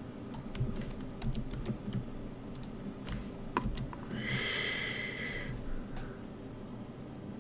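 Scattered, irregular clicks of a computer mouse, then a soft breathy noise lasting about a second just past the middle, like a breath let out.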